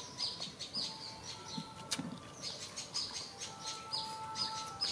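A small bird chirping: short, high, falling notes about twice a second, with a pause in the middle of the run.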